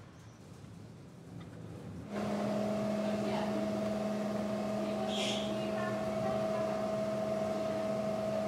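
Front-loading laundry machine running with a steady, even hum that starts suddenly about two seconds in. A brief hiss comes about five seconds in.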